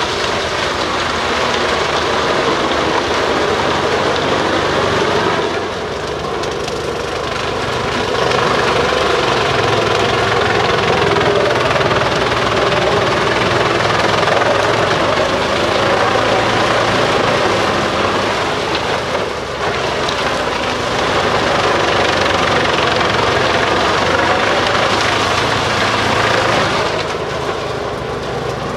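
Bruks 1006 ST drum chipper, powered by its own 720 hp engine, running loud while chipping forest waste: a steady engine drone under a continuous grinding rush that eases briefly a few times.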